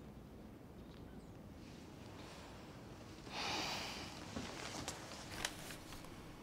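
A woman's heavy sigh, just under a second long, about three seconds in, followed by a few light clicks and rustles as she handles a fabric bag on the bed, over quiet room tone.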